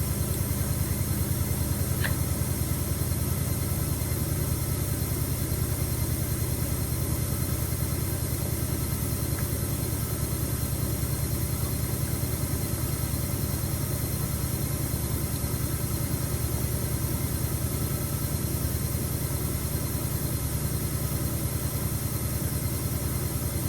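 Front-loading washing machine on its spin cycle, its drum turning at a steady speed with a fast, even pulsing rumble. It is holding a lower spin speed rather than ramping up to the 1400 RPM selected, likely only around 600 RPM.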